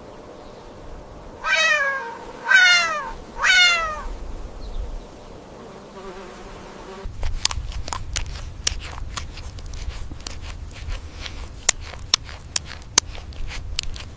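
An animal calls three times, about a second apart, each a short cry falling in pitch. From about halfway on come many sharp clicks and crackles.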